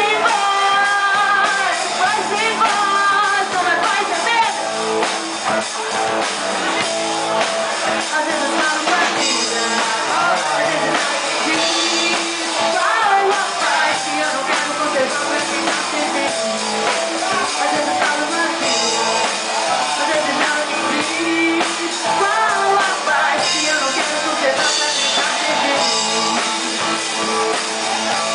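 A live band playing: drum kit, electric guitar and a singing voice, loud and continuous.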